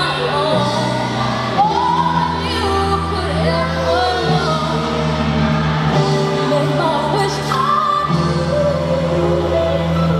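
Song with a singing voice over held bass notes, played as accompaniment music for a gymnastics floor routine.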